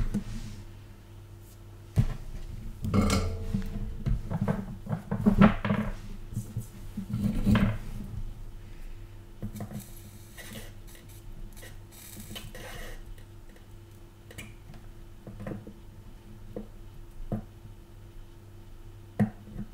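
Small metal tools and parts clinking and clattering as they are handled and set down on a workbench. The knocks come thickest in the first half and then thin out to occasional clicks, over a steady low electrical hum.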